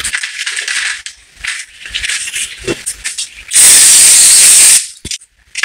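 Paper towel rustling, then a spray from an aerosol can of brake and parts cleaner: a loud, steady hiss lasting about a second, starting about three and a half seconds in. A short knock follows right at the end.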